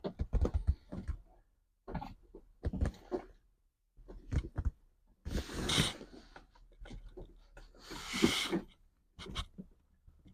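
Hands working on a fuel pump and its rubber tank gasket: scattered small clicks and knocks, with two short scraping rustles about five and eight seconds in.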